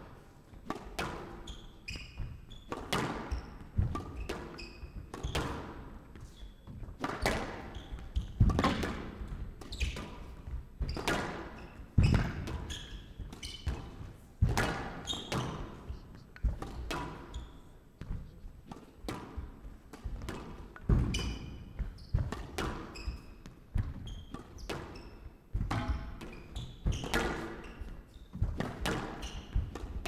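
Squash rally: racket strikes and the ball hitting the court walls in a run of sharp hits, about one a second, with short high squeaks between them.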